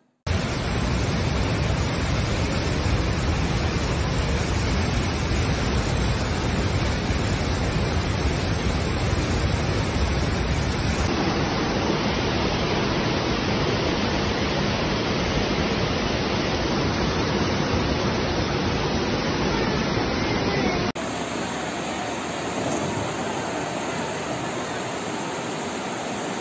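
Flash-flood torrent of muddy water rushing through town streets: a loud, steady rush of water. The sound changes abruptly about eleven seconds in and again about twenty-one seconds in, and is a little quieter with less low rumble in the last part.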